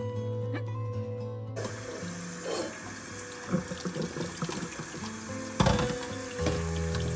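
Hot pasta water pouring from a pot through a plastic colander into a stainless steel sink: a steady rushing splash that starts about a second and a half in, with one sharp knock at about five and a half seconds, over background music.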